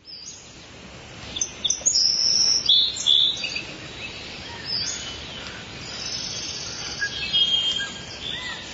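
Songbirds singing: a mix of high chirps, whistled notes and trills, busiest in the first few seconds, over a faint steady hiss.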